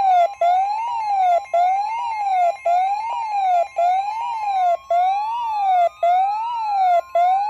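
Emergency alert tones announcing a severe thunderstorm warning: a siren-like tone sweeping up and down about once a second, with brief gaps between sweeps, over a steady higher tone. About halfway through, a second tone begins to slide slowly upward.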